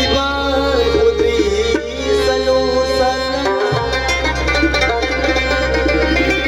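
Live Pashto folk music: harmonium and electronic keyboard melody over tabla, with a low held bass drone that drops out briefly a little past halfway.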